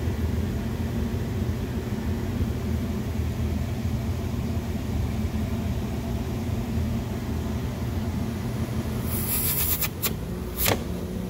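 Steady low machine hum. About nine seconds in, a metal buffing-wheel rake scrapes against a spinning cotton buffing wheel in short harsh rasps, tearing caked polishing compound off it, with a sharp click near the end.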